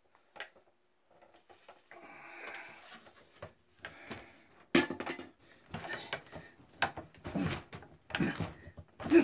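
A hand scooping pulp and seeds out of a hollow pumpkin: wet scraping and rustling inside it, with knocks against the shell. The knocks become louder and more frequent about halfway through.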